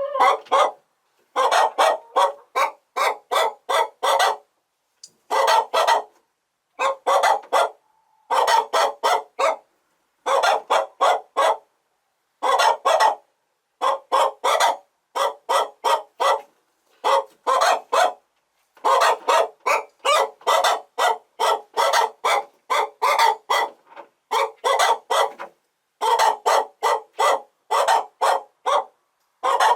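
Chickens clucking: short, pitched calls in quick runs of three to six, repeated over and over.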